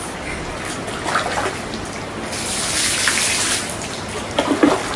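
Hot spring water running and splashing steadily, with a louder rush of splashing for about a second midway. Near the end a plastic wash basin is dipped into the bath to scoop water, giving a few short sloshes.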